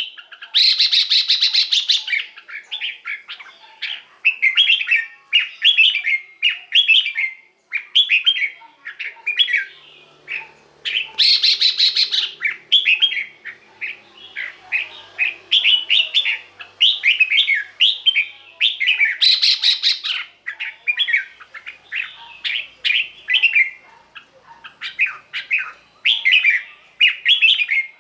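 Red-whiskered bulbul singing: a continuous string of short, quick warbled phrases. A harsher, rasping burst comes near the start and then about every eight seconds.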